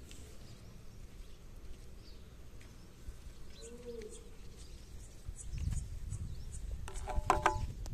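Outdoor ambience with faint, scattered bird chirps. A low rumble comes in a little past halfway, and a brief, louder sound with a few tones follows near the end.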